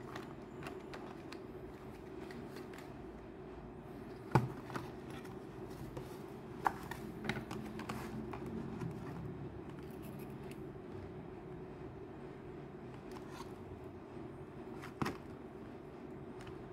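Cardboard box and plastic candy-lipstick tubes being handled: scattered sharp clicks and taps, the loudest about four seconds in and another near the end, over a steady low background hum.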